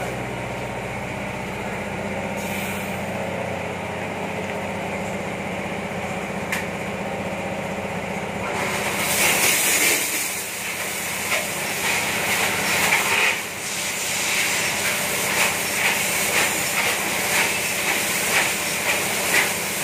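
Automatic oscillating bike wash machine running: a steady motor and pump hum, then from about halfway in a hiss of pressurised water spray that swells and fades in regular surges.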